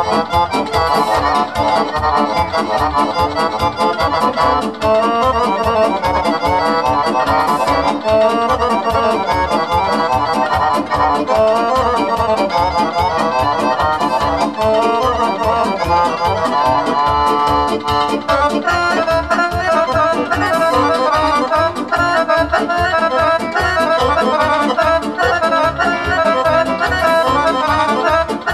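Amplified Romanian folk dance music (a joc) led by accordion over a band, with a steady fast beat.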